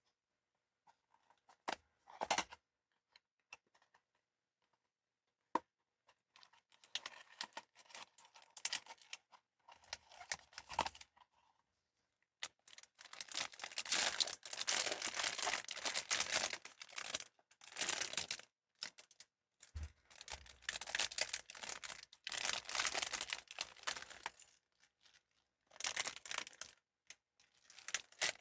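Blind-box packaging being handled: a few light clicks and taps at first, then from about halfway, repeated stretches of wrapping being torn open and crinkled.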